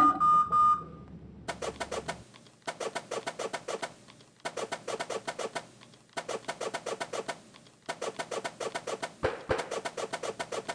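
Short recorded sound clips retriggered in rapid rolls on the Mad Pad app: dense runs of quick, evenly spaced clicks in phrases of about a second and a half, each separated by a brief gap.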